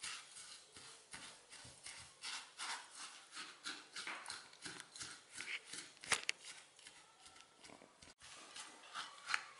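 Silicone spatula stirring and pressing crushed digestive biscuits moistened with melted butter in a glass bowl: a quick, irregular run of soft scrapes and taps, with one sharper knock about six seconds in.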